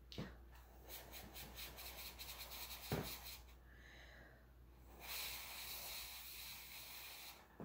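Rapid ticking and rubbing of hands handling small objects, with a sharp knock about three seconds in. From about five seconds in comes a steady breathy hiss lasting a little over two seconds, as a person blows on a false eyelash held close to the lips.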